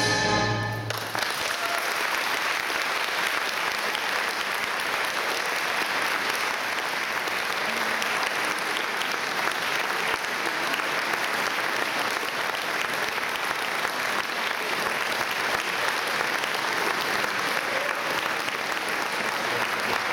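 An orchestra's final chord cuts off about a second in, and an audience applauds steadily from then on.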